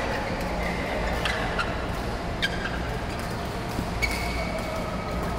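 Badminton rally sounds: sharp racket-on-shuttlecock hits about a second apart and short squeaks of court shoes on the mat, over the steady din of a large badminton hall.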